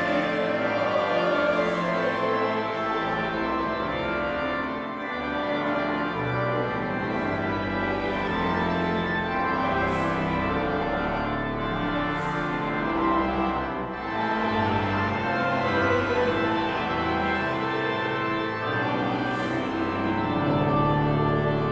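Organ playing slow sustained chords over a moving bass line, fading out at the very end.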